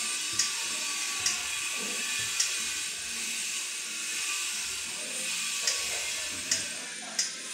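Spark igniter on a gas oven's pilot burner clicking six times at uneven intervals over a steady hiss, as the pilot light is being lit.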